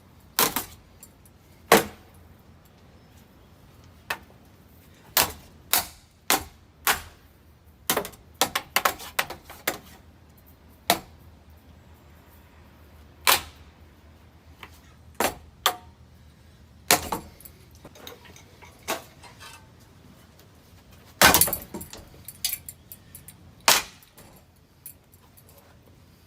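Ceiling fan with warped blades, wobbling as it runs, hit again and again by sharp clacks and knocks at uneven intervals. A faint steady low hum sits underneath. The loudest cluster of hits comes about three-quarters of the way through.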